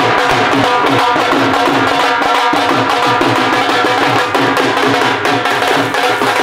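Punjabi dhol drumming in a fast, steady beat, over a steady held tone.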